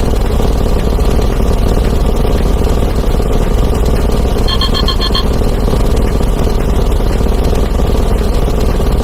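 Sound effects fired off so fast that they pile up into a continuous, loud, dense rumble. About four and a half seconds in, a short burst of rapid electronic ringing beeps cuts through, like a phone-ring effect.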